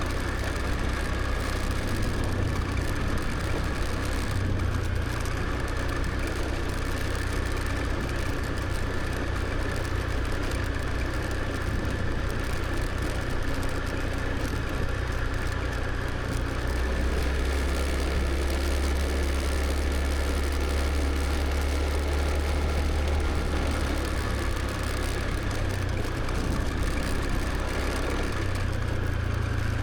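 Motor scooter engine running steadily during a ride, with a continuous low rumble that drops lower for a stretch about halfway through.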